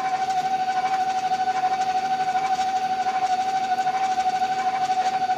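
Electric mixer motor running steadily at one speed with a constant whine, beating cake batter.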